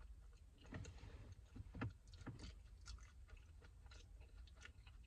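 Close-miked mouth sounds of a person chewing sushi: soft, wet, irregular clicks and smacks, a few slightly louder about one to two seconds in.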